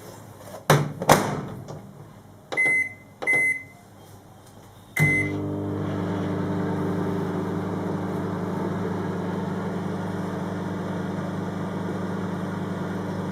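Microwave oven being set going: two knocks, two short keypad beeps and a third beep, then the oven starts and runs with a steady hum while it heats the oiled, salted cashews.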